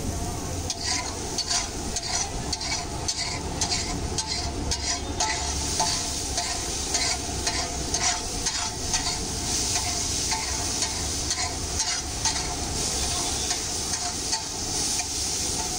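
Metal spatula scraping and tapping on a large flat iron tawa, pushing egg bhurji through hot oil. The frying mixture sizzles under the strokes, and the sizzle grows louder about five seconds in.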